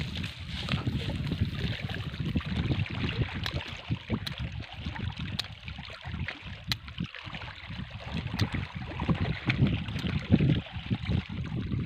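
Wind buffeting the microphone outdoors, a gusty low rumble over a steady hiss, with a few faint sharp crackles through the middle.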